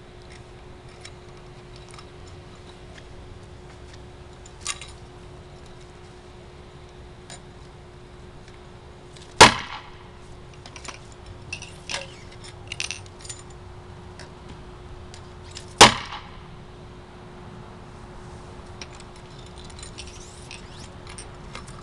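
Lightweight 40mm airsoft mortar firing twice, about six seconds apart: each shot a sharp, loud pop as the shell launches from the tube. Lighter clicks and knocks from handling the tube come between, over a faint steady hum.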